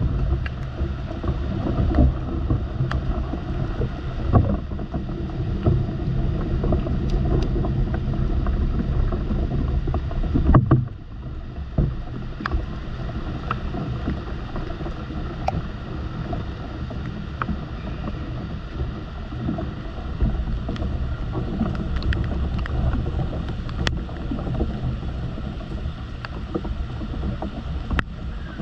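Steady rain falling, with scattered sharp taps of drops striking the camera over a low rumble. About ten seconds in there is a louder knock, after which the rumble is a little quieter.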